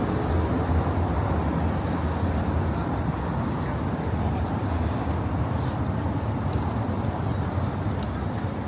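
City street noise dominated by the steady low rumble of a motor vehicle's engine running close by, easing off slightly toward the end.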